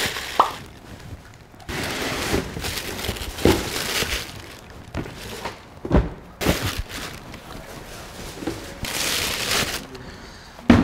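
Tissue paper crinkling and cardboard shoeboxes being handled as sneakers are lifted out and checked. The rustling comes in spells of about a second, with a few sharp knocks of box against counter.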